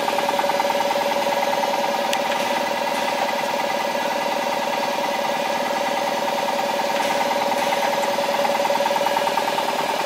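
Bench-top wire-terminal crimping machine running with a steady, rapidly pulsing mechanical hum, with a few faint clicks over it.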